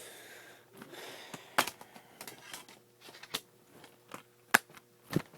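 A series of sharp, irregular clicks and taps with brief rustling in the first second or so, like close handling noise.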